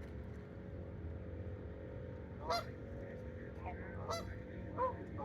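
Canada geese honking: a handful of short, separate honks, starting about halfway in.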